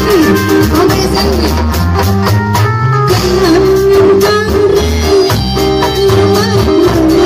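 Loud amplified live reog-dangdut music from a sound system: a steady drum beat and bass under a wavering melody line, with a woman singing into a handheld microphone.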